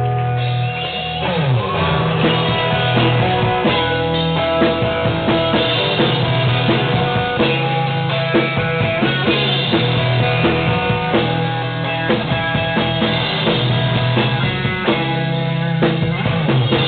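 Rock band playing a song's instrumental intro, with a drum kit keeping a steady beat under electric guitar and bass.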